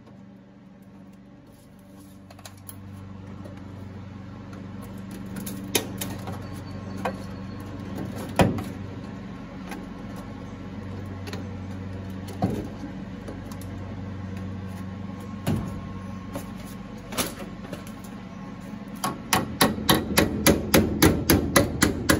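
Hammer tapping a steel patch panel in a car's inner wheel well to work the curve of the wheel-well radius into it as it is fitted. There are a few scattered single knocks, then a quick run of taps about three a second near the end, over a steady low hum.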